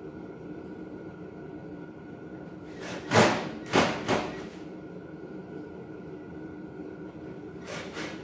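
Sheet-metal cabinet panels knocking as they are handled: three short, loud clanks within about a second, three to four seconds in, and a fainter one near the end, over a steady hum.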